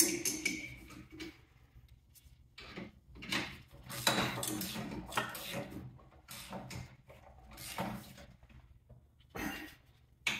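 Irregular clinks, scrapes and rustles of a wrench and gloved hands at the oil drain fitting under an Ariens snowblower engine as it is tightened back on.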